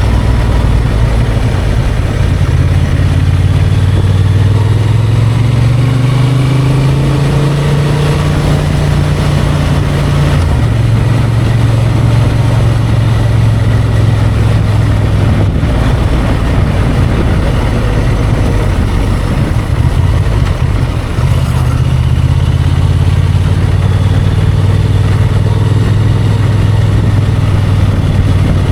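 Honda XL750 Transalp's parallel-twin engine running while riding off road, the throttle varying: the engine note climbs for a few seconds, drops abruptly about ten seconds in, dips briefly about twenty-one seconds in, then runs steadily.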